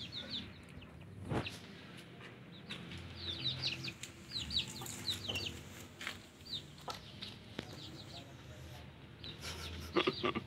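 Young village chicks peeping in rapid, short, high, falling chirps, with lower clucking from a chicken underneath. A couple of sharp knocks come near the end.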